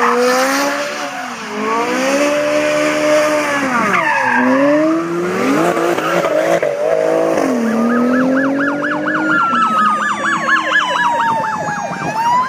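Ferrari 458's V8 revving up and down hard as it spins donuts, tyres squealing. From about seven seconds in, a police car siren takes over: a fast yelp, about five cycles a second, over a slower gliding wail.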